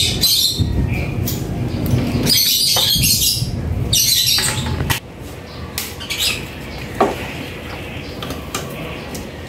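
Metal hand tools and bolt hardware clinking and rattling in short bursts while the mounting bolts of a scooter's rear shock absorber are worked by hand and with a folding hex-key tool. There is a single sharp click about seven seconds in.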